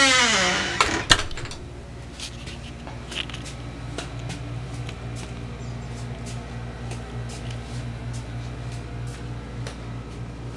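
A door hinge finishes a long creak that falls in pitch, and the door knocks twice about a second in. After that a steady low hum runs on, with faint footfalls and handling clicks about twice a second on the wooden floor.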